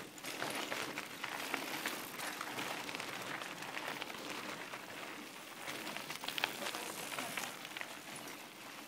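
Bicycle tyres rolling over a loose gravel-and-dirt pump track: a steady gritty hiss with scattered crackles and clicks.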